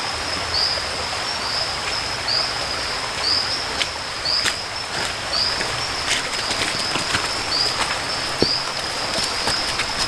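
Forest stream rushing steadily, with a high chirping call repeating a little under once a second, and a few footsteps knocking on rocks.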